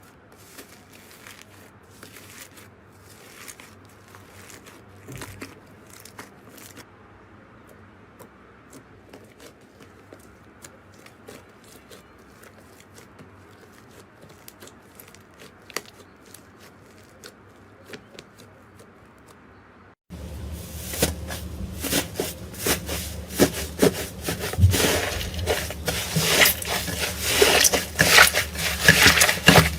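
Slime being squished and poked by hand, making soft clicks and crackles. About two-thirds of the way in the sound turns much louder and denser.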